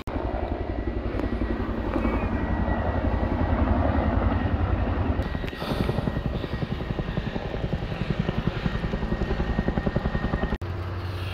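Helicopter flying close by, its rotor beating rapidly and steadily. Near the end it cuts off abruptly and gives way to a steady low engine hum.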